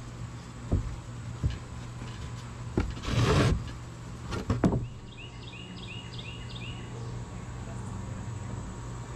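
Wooden boards being laid out on a plywood sheet: several dull knocks of board against board, and a short scrape as a board slides across the plywood a little past three seconds in.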